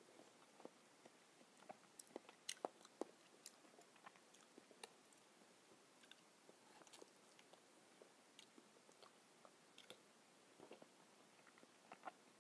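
Faint chewing of soft, ripe papaya: scattered wet mouth clicks and smacks at irregular intervals, with an occasional light click of a metal spoon.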